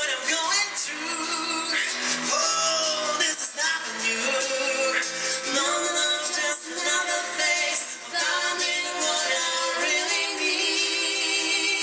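A female and a male singer performing a duet live, with instrumental accompaniment.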